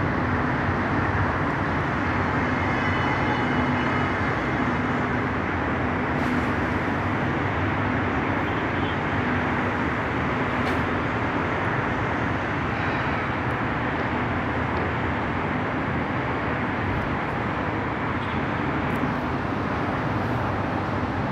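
Steady, blended hum of city road traffic, with no single vehicle standing out and a faint high tone briefly a few seconds in.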